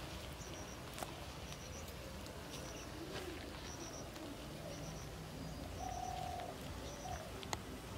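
Birds calling: a dove cooing low a few times and a short high double chirp repeating about once a second, over a steady low outdoor background.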